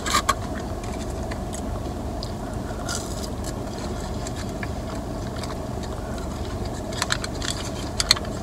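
Chewing food and the crinkle of a plastic ketchup packet being handled and squeezed, with sharp crackles near the start, about three seconds in, and several more near the end. A steady low hum from inside the car lies under it.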